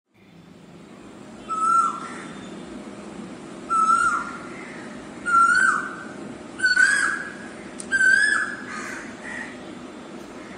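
A bird calling five times, about once every second and a half. Each call is a short clear note that dips at its end, and each is a little higher in pitch than the one before.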